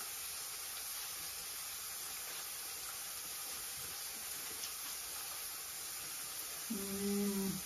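Faint steady hiss from the stove, where morel curry cooks in an iron karahi over a lit gas burner. Near the end comes a short hummed "mmm" as the food is tasted.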